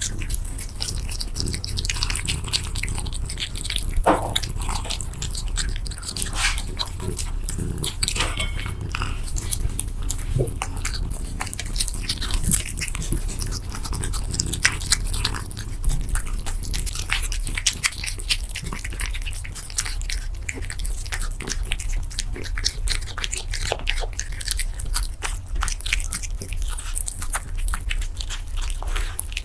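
A silver shaded cat chewing and crunching food close to the microphone: many quick irregular crunches and bites, over a steady low hum.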